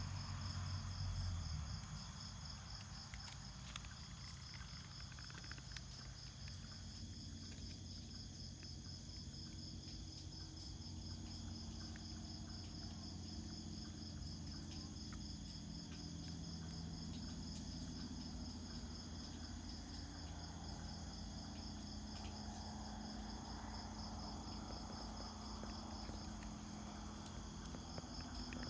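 Night insects calling in chorus: a steady, rapid high trill that runs on without a break, with fainter steady high tones alongside. A low rumble sounds in the first second or two.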